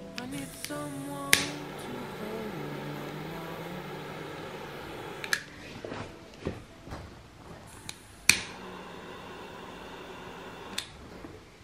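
Hand-held lighter clicked again and again to light a candle: about seven sharp clicks, the loudest near the start and about two-thirds through.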